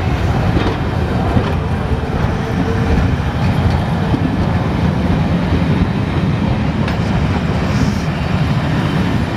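A train passing close by at speed: a loud, steady rumble of wheels on the rails.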